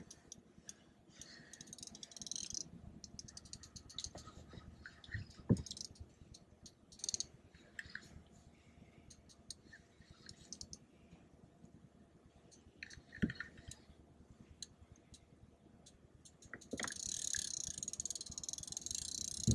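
Spinning reel's drag buzzing as a hooked sturgeon pulls line off, starting a few seconds before the end. Before that, scattered faint clicks and a couple of short dull knocks.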